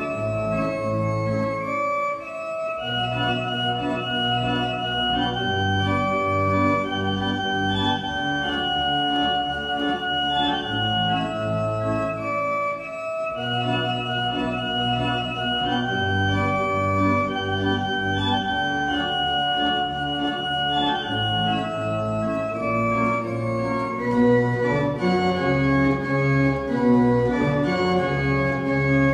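Organ music: slow, sustained chords with a melody moving above them.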